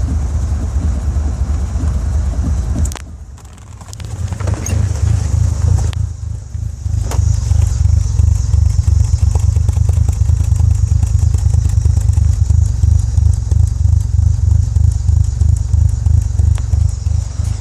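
Mitsubishi 4G64 engine converted to a 4G63, idling roughly. The sound drops sharply for about a second, three seconds in, then comes back to a steady idle.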